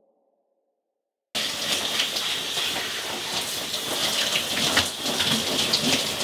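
Shower running from a handheld shower head, water spraying and spattering in a steady hiss. It cuts in abruptly about a second in, after a moment of silence.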